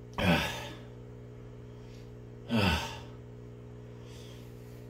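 A man sighing twice, about two seconds apart; each is a breathy exhale that falls in pitch. He is in pain from a mouth burning with chilli extract.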